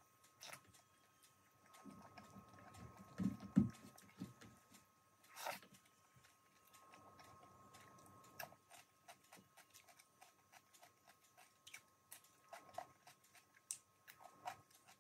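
Quiet eating by hand: small clicks and smacks of chewing and crunching raw cucumber slices, with a few dull thumps a couple of seconds in. A faint steady high tone sits underneath.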